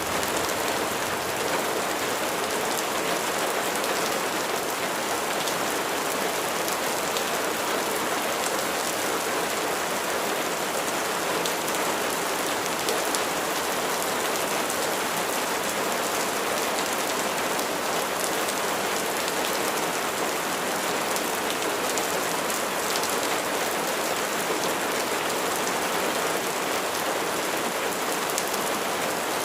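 Steady rain falling, an even hiss of many drops with no change throughout.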